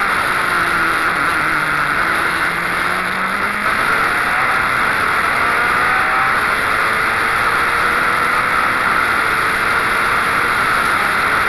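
Wolf GB08 Honda sports prototype at speed, heard from its onboard camera: a loud steady rush of wind and road noise over the engine, whose pitch rises as the car accelerates down the straight, with a break about three and a half seconds in like an upshift.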